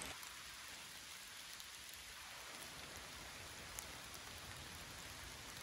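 Steady light rain falling through spruce woods, faint, with scattered ticks of single drops.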